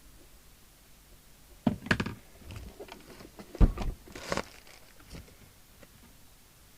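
Clunks and clatter of a metal radio set being handled on a workbench: a few knocks in quick succession, a heavy low thud about three and a half seconds in, then a rattle and a last light knock.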